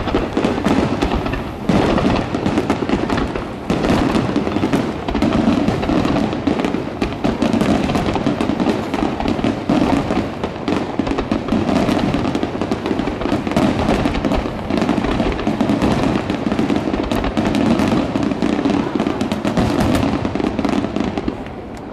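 Fireworks bursting in a dense, continuous barrage, many sharp reports and crackles overlapping with no break, easing off near the end.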